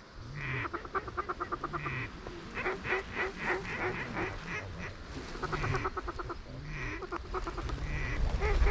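Mallard-type duck quacking: several single quacks, each followed by a fast chuckling run of short notes, about ten a second, repeated over and over.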